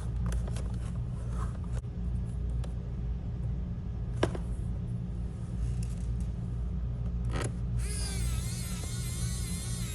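Small clicks of screws and a screwdriver working on a laptop's bottom cover, over a steady low hum. Near the end a high, wavering whine comes in for about two seconds.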